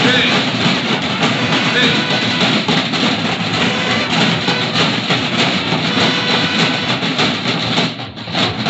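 School marching band's snare drums and bass drums playing together with music, loud and continuous, with a short drop in loudness just before the end.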